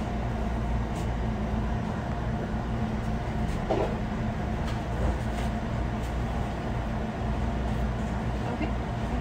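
Steady low hum of restaurant kitchen machinery, with a few faint clicks and knocks.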